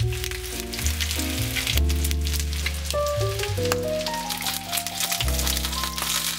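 Breaded chicken drumsticks sizzling and crackling in hot oil in a frying pan. Background music with a bass line and a melody plays over the frying.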